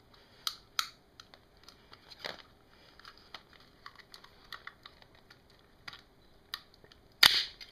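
Screwdriver prying at the glued plastic case of a small power-supply brick: scattered small clicks and creaks of plastic, then a loud crack near the end as the glued seam breaks.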